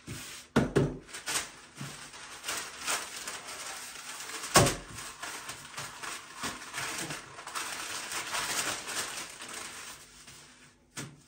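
Sheets of baking paper rustling and crinkling as they are handled and laid out on a countertop, with a few dull knocks, the loudest about four and a half seconds in.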